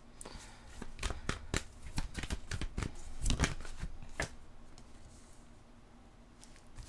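Tarot cards being shuffled and handled: a quick run of clicks and rustles for about four seconds, then quieter.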